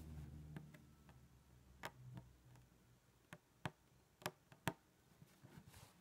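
Faint, sharp ticks, about half a dozen at uneven intervals mostly in the middle: an embroidery needle piercing cotton drill fabric stretched taut in a hoop as stitches are worked with perle thread.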